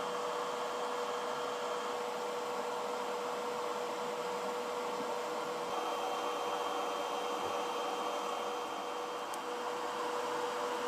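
Steady mechanical hum and hiss with one constant mid-pitched tone.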